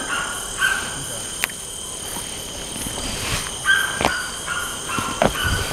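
Night chorus of crickets and other insects trilling steadily at a high pitch, with frogs calling in short bouts several times. There are a few sharp clicks.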